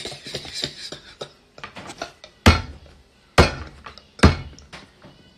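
Laughter trailing off, then three loud, sharp knocks or thumps about a second apart, with a few lighter taps between them.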